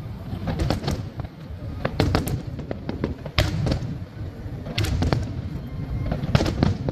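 Aerial fireworks shells bursting in a display: sharp bangs, several in quick clusters, over a continuous low rumble.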